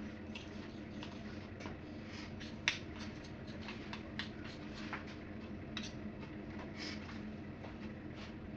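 Light scattered clicks and taps of spoons and kitchen things being handled, one sharper click near a third of the way in, over a steady low hum.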